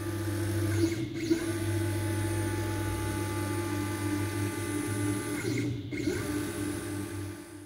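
Stepper motors driving the table of a 1965 Deckel FP1 mill converted to CNC: a steady mechanical hum with a high whine. The sound eases off and picks up again twice, about a second in and just before six seconds, as the motion slows and resumes.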